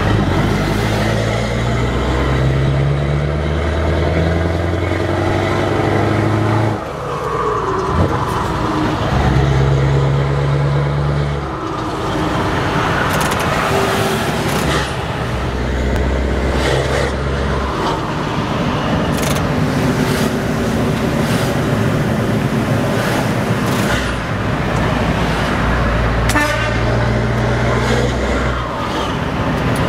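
Scania 164L 580's V8 diesel with open exhaust pipes pulling on the road, heard from the cab: the engine note climbs as the truck accelerates, drops out briefly at gear changes about 7 and 12 seconds in, then picks up again.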